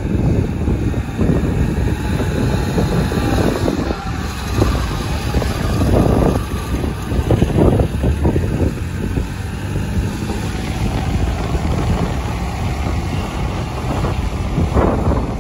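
Wind rumbling on the microphone over street noise as a small fire-and-rescue utility vehicle drives slowly past, its engine running.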